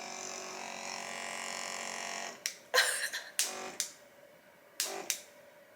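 Small electric adult toy's motor buzzing steadily, then cutting off about two seconds in, followed by a few short handling clicks and knocks.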